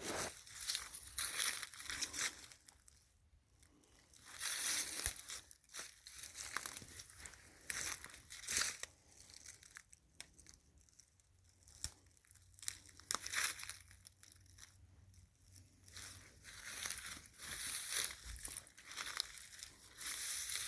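Footsteps crunching through dry fallen leaves and brush on frozen ground, in uneven bursts with short pauses between.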